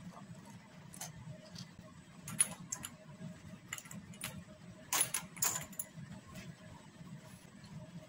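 Glass test tubes clinking against a wire test-tube rack and each other as they are handled and lifted out: a few separate sharp clinks, the loudest pair about five seconds in, over a faint steady low hum.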